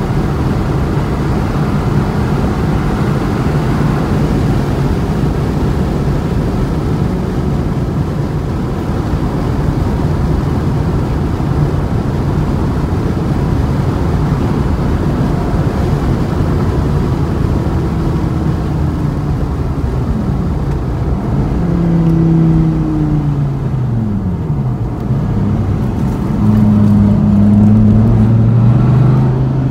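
Dodge Viper V10 engine running hard at track speed under heavy wind and road noise. About twenty seconds in, the engine note falls several times as the car slows for a turn, then it rises and gets louder as the car accelerates out near the end.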